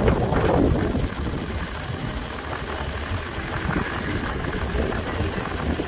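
Go-kart engines running as karts drive past, a little louder in the first second and then steadier and quieter as they move off.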